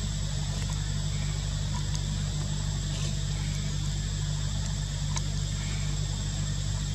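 A steady low mechanical hum, like a running engine or motor, under a constant high thin whine, with a few faint ticks.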